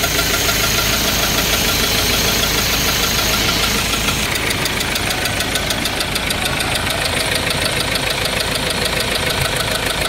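Four-cylinder diesel engine running with a rapid, even knock. From about four seconds in the knocking is clearer as a fast train of ticks.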